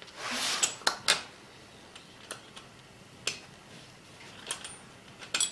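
A nut and washers being taken off a lawn tractor's front stub axle by gloved hands: a brief scrape, then a scattering of small, separate metal clicks and clinks.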